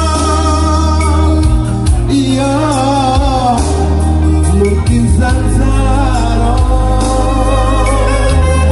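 A man singing a Minang (Padang) pop song into a microphone, with long held notes that waver with vibrato, over a live keyboard band backing with a heavy, steady bass.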